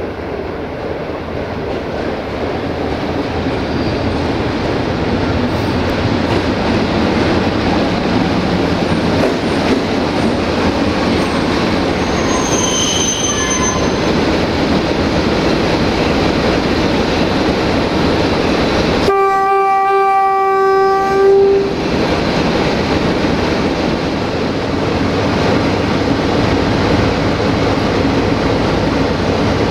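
060-DA (LDE2100) diesel-electric locomotive with a Sulzer engine running steadily as it approaches hauling passenger coaches, the rumble growing louder over the first few seconds. A brief high squeal from the running gear comes about twelve seconds in. One horn blast of about two and a half seconds sounds about nineteen seconds in.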